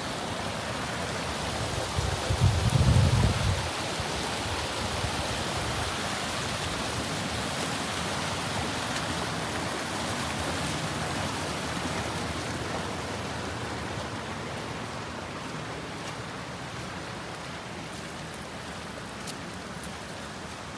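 Mountain stream rushing over rocks in a steady wash of water noise that slowly grows a little quieter toward the end. A brief low rumble about two seconds in.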